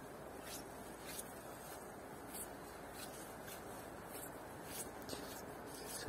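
Footsteps walking at a steady pace on a damp forest dirt path: faint soft scuffs, a little under two steps a second.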